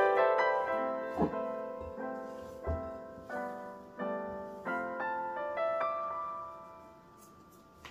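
Background piano music, notes and chords struck one after another and left to ring and die away, fading out near the end.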